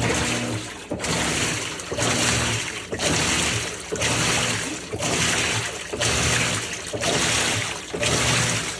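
Maytag Centennial top-load washer running its automatic test, water rushing and sloshing in the tub. The sound starts suddenly and comes in even surges about once a second, with a low motor hum beneath.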